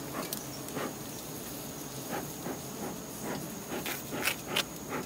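Scattered short rustles and scrapes as a knife cuts into a wild honeycomb among dry reeds, over a faint steady high hiss.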